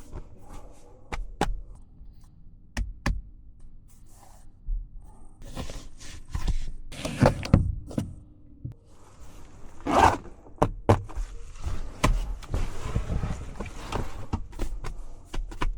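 A run of irregular sharp clicks and knocks with a few dull thuds and short rustling bursts, the loudest thud about ten seconds in.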